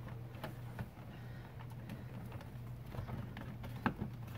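Faint clicks and knocks of the plastic center console trim of a BMW E46 being worked loose by hand, the sharpest about four seconds in, over a steady low hum.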